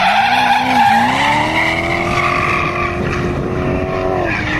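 Drift car engine revving hard: the pitch dips, climbs from about a second in and holds high and steady, then drops near the end. Tyres squeal and hiss as the car slides.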